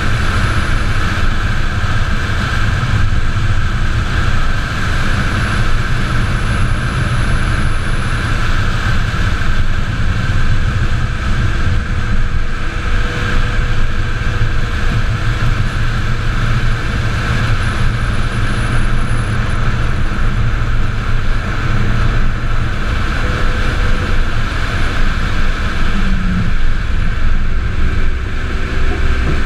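Wind and road noise on the onboard camera of a solar race car driving at speed: a steady rush with a deep rumble underneath.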